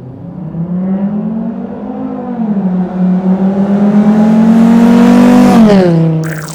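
Car engine accelerating: its note climbs over the first couple of seconds, dips briefly a little over two seconds in, climbs again to its loudest and then drops away near the end.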